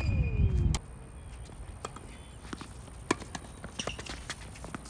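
Tennis doubles rally on a hard court: sharp pops of racquets striking the ball, a few seconds apart, with footsteps on the court. A low rumble cuts off suddenly under a second in.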